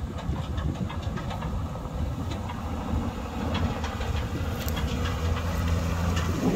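JCB wheel loader's diesel engine running steadily as the machine drives over gravel. Scattered clicks and crackles of stones can be heard from the tyres and bucket. The drone grows louder towards the end.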